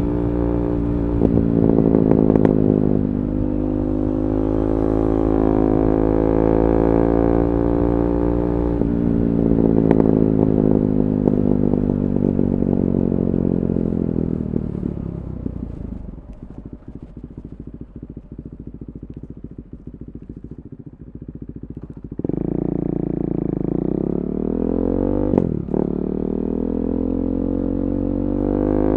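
KTM 390 Duke's single-cylinder engine through an Akrapovic Moto2 slip-on exhaust with the catalytic converter removed, revving up, then falling slowly in pitch as it slows. In the quieter middle stretch it crackles and pops on the overrun, and about two-thirds of the way in the engine picks up loudly again.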